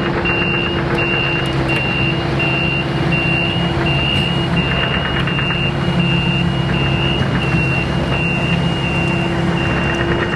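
Kubota KX080-4 excavator's diesel engine running steadily as the machine tracks along, its travel alarm beeping about twice a second.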